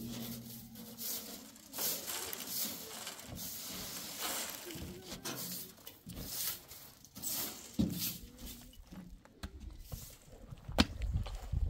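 Straw broom sweeping the metal bed of a pickup truck: repeated swishing strokes about once a second. A few sharp knocks sound near the end.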